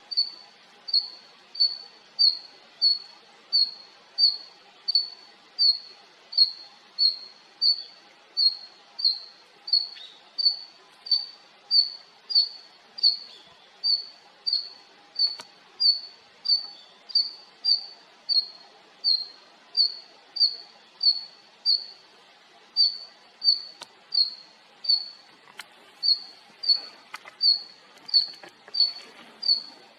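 Female red-flanked bluetail (Tarsiger cyanurus) giving a short, high call note over and over at an even pace, about three notes every two seconds, with a couple of brief pauses.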